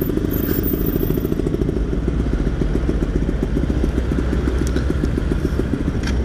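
Yamaha F1ZR's two-stroke single-cylinder engine running steadily under way through its aftermarket exhaust, a fast, even train of firing pulses over a low rumble.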